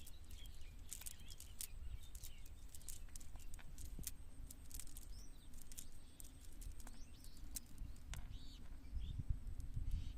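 Small birds chirping in short calls, with scattered sharp clicks and taps over a steady low rumble.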